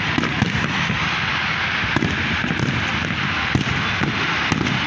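Aerial firework shells bursting one after another: a steady crackle with many sharp bangs.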